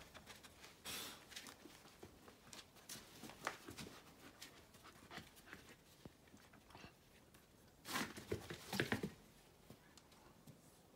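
Two bull terriers, a puppy and an older dog, playing on a floor mat: faint scuffling, clicks and dog breathing sounds, with a louder flurry about eight seconds in.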